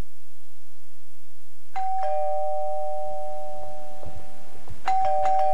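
Two-tone doorbell chime, a high note followed by a lower one, both left ringing for a few seconds. It is rung again near the end.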